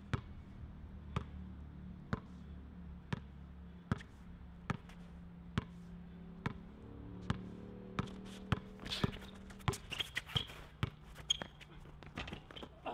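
A basketball is dribbled on a hard outdoor court in slow, even bounces about one a second. About eight seconds in the bounces turn into a quick flurry of sharper hits.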